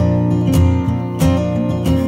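Background music: an acoustic guitar strummed in a steady rhythm, about three strokes a second.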